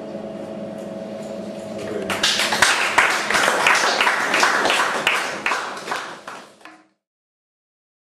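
The last acoustic guitar chord rings out and fades, then a small audience applauds for about five seconds before the sound cuts off.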